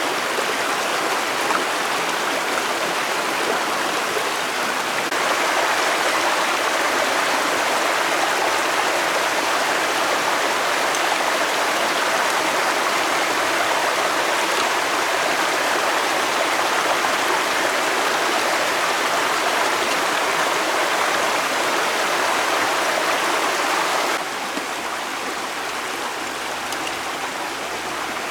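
Steady rush of flowing floodwater in a stream, getting a little louder about five seconds in and dropping abruptly near the end.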